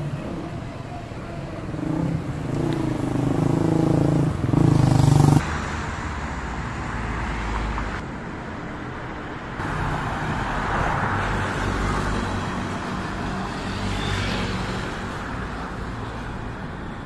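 Road traffic on a city street: a motor vehicle's engine grows louder over the first five seconds and then cuts off abruptly, followed by steady traffic rumble that changes suddenly again near ten seconds.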